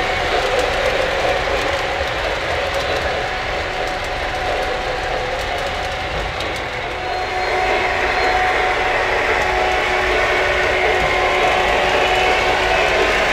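O scale model freight train running on three-rail track: a steady rolling rattle with fine clicking from the wheels and cars.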